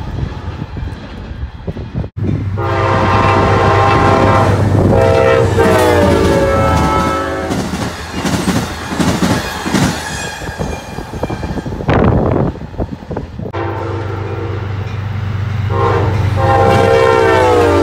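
Amtrak passenger train's locomotive horn sounding a long multi-note chord that slides down in pitch as the train passes, over the low drone of its diesel engine. In between, the wheels clack over the rail joints, and near the end the horn chord sounds again and drops in pitch once more.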